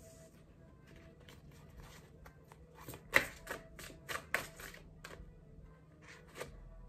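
Tarot cards being shuffled and handled by hand: a series of soft card slaps and flicks, the loudest about three seconds in, with a few more just after four seconds.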